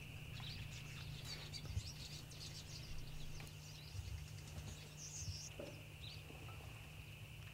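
Faint outdoor ambience with scattered small, high bird chirps over a steady faint high-pitched tone.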